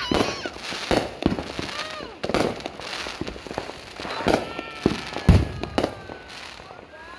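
Aerial fireworks shells bursting overhead in an irregular series of sharp bangs, about eight in all, the loudest one about five seconds in.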